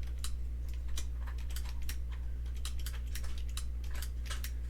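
Typing on a computer keyboard: irregular key clicks, several a second, over a steady low electrical hum.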